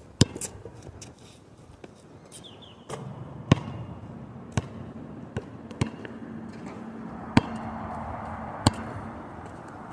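Basketball bouncing: about seven sharp, irregularly spaced bounces, the loudest just after the start, over a steady background rush.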